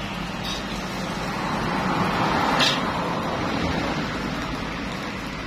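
Steady roar of a gas wok burner under a wok of frying noodles, with a single short metal knock about two and a half seconds in.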